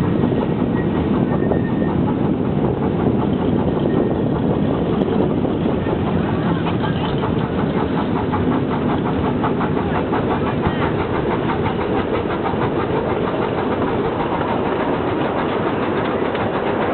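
Miniature live-steam locomotive running along its track: a steady noise of exhaust chuffs and wheels on the rails, with a rapid even beat coming through more clearly from about six seconds in.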